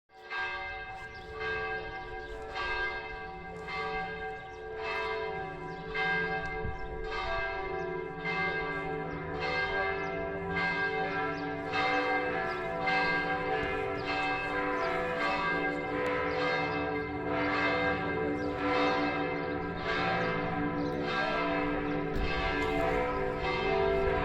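Matera Cathedral's church bells ringing, struck about once a second, each stroke's tones ringing on and overlapping the next. The ringing grows slightly louder as it goes.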